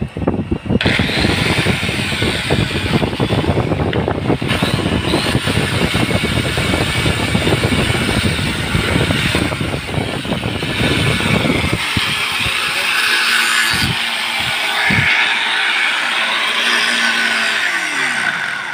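Electric angle grinder with a cut-off disc running under load, cutting into a small metal bracket with a steady, gritty hiss. After about twelve seconds the grinder runs lighter with a higher motor whine and a couple of knocks.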